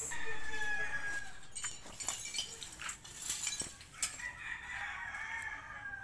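Rooster crowing twice: a short crow at the start and a longer one beginning about four seconds in that falls in pitch at the end.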